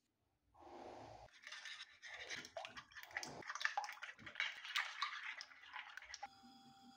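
Metal spoon beating raw eggs in a ceramic plate: quick, uneven scraping and clinking strokes against the plate. About six seconds in the strokes stop and a steady tone takes over.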